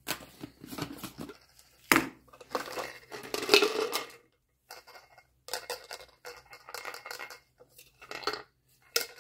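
Small metal bolts and hardware clinking and knocking together as they are handled, in irregular bursts.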